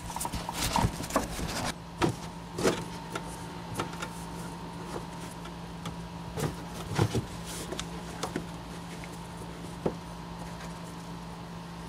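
Felt-covered trunk side trim panel being pushed and settled into place by hand, with rustling and light knocks and clicks, most of them in the first few seconds and a few more later. A steady low hum runs underneath.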